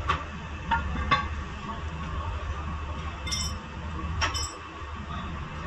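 Scattered, irregular metallic clinks and ticks of a hand tool and steel parts knocking against a car's rear brake caliper, a few of them ringing briefly, over a steady low hum.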